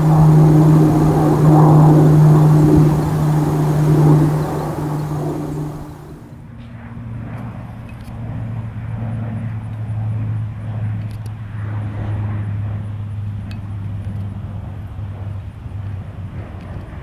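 A-29 Super Tucano's single turboprop engine and propeller passing overhead with a loud, steady drone. About six seconds in, the sound cuts off abruptly. It is replaced by a quieter, lower propeller drone from a four-engine C-130 Hercules turboprop approaching.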